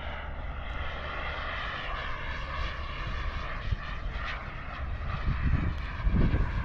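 Model jet's turbine engine running in flight, a high whine of several steady tones that drift slightly in pitch, from an RC L-39 Albatross. Low rumbling gusts underneath grow stronger about five to six seconds in.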